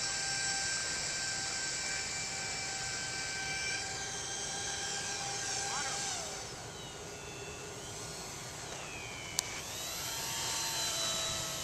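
Model airplane's motor and propeller whining in several high tones. The pitch holds, sinks about halfway through, and climbs again near the end, with one sharp click just before the rise.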